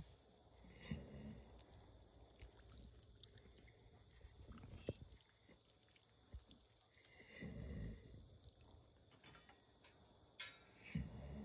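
A foaling mare grunting faintly as she strains to push out her foal, three times a few seconds apart, each about a second long.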